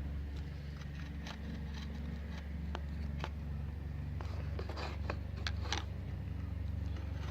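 Scattered light scrapes and clicks of hand tools working on a piece of wood, over a steady low hum.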